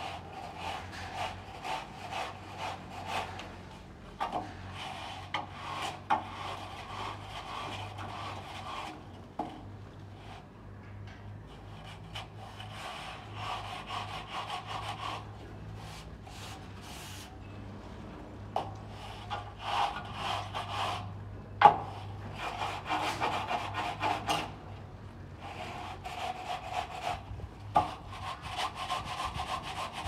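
A plastering tool scraping and rubbing over cement render on a wall, in repeated stretches of strokes with short pauses between them. A sharp knock comes a little over two-thirds of the way through.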